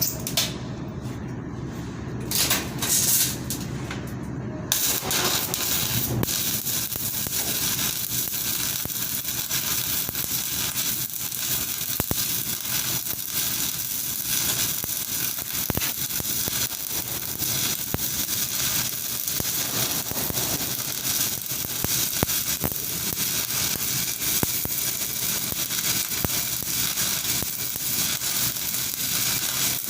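Electric arc welding: the arc crackles steadily with a dense hiss of tiny pops, starting about five seconds in.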